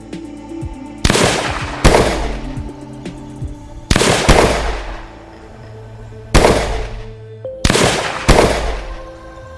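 Seven gunshots, spaced unevenly and some in quick pairs, each with a fading echo. Ambient background music plays underneath.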